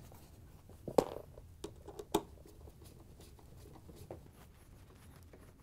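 Refrigerator's lower back access panel being handled and lined up against the cabinet for its screws: a few short taps and knocks, the sharpest about a second in and just after two seconds, then a smaller one near the end.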